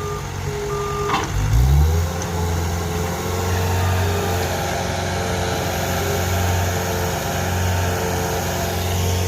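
Engine of a hole-digging machine speeding up about a second and a half in, then running steadily under load, with short intermittent whining tones over it.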